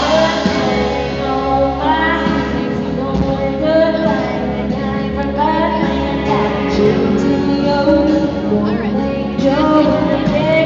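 Live country band with women singing a song, heard loud and full from the audience through a phone's microphone.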